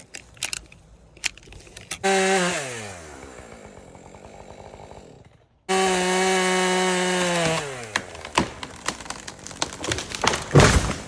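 Two-stroke chainsaw run twice at full throttle with a steady high note, each time dropping back as the throttle is released. Scattered clicks and knocks come between the runs, and a heavy thump comes near the end.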